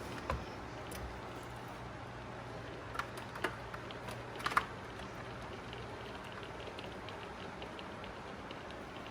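A spoon scooping cake batter out of a baking pan: a few light clicks and taps of the spoon against the pan, the clearest about three and four and a half seconds in, over a low steady hum.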